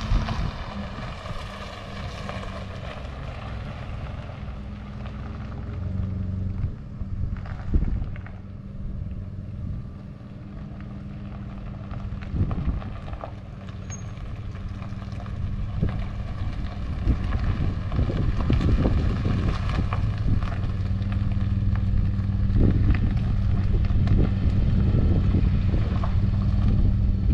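Chevrolet pickup truck's engine running as it pulls up, turns and reverses slowly across gravel up to a trailer hitch. The engine grows louder toward the end as the truck nears, with scattered crunches from the tyres on the gravel.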